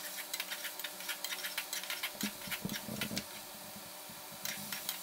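Chopped capsicum and onion-tomato masala frying in a steel kadai, with light sizzling and irregular small clicks as a wooden spatula stirs and scrapes the pan.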